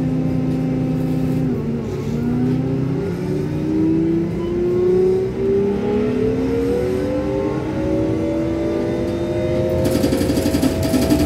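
Engine of a road vehicle, heard from inside, running steadily at a stop and then pulling away. About a second and a half in, its pitch dips, then climbs steadily with a couple of small steps as it gathers speed. Near the end a rougher road rumble joins in.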